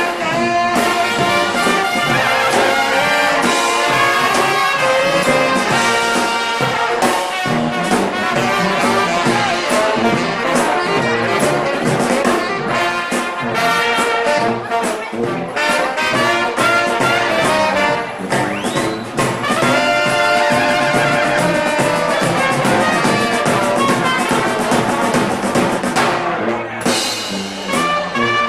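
Live band playing music, with brass horns carrying the melody over a drum beat.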